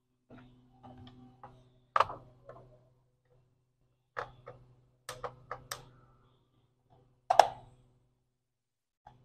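A screwdriver undoing the screws on the plastic underside of an HP G4 laptop: scattered light clicks and scrapes, with two sharper knocks, one about two seconds in and a louder one about seven seconds in.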